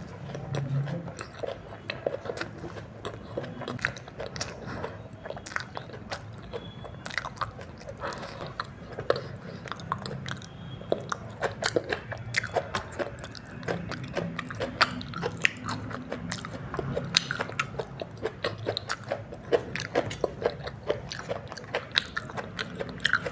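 Close-miked chewing of chow mein noodles: many wet mouth clicks and smacks, closely spaced and irregular.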